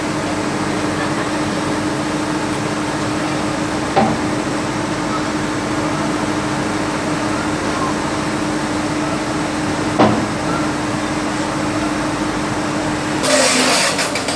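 A heavy diesel engine idling with a steady hum, and two sharp metal clanks from the steel loading ramps being handled, about four and ten seconds in. Near the end there is a brief rush of noise.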